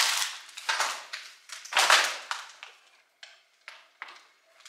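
Broken glass crunching and clinking in a series of sharp, irregular crunches, loudest in the first two seconds and growing fainter.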